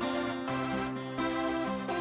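Background music: an electronic instrumental track with held notes that change pitch in quick steps.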